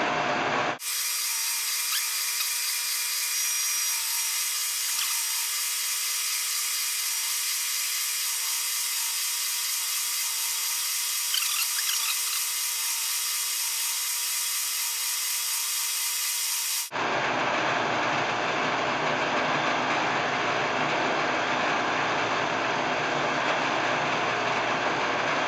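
Electric buffing wheel running steadily. About a second in the sound abruptly turns thinner and hissier, and about seventeen seconds in it switches back to a fuller, steadier hum.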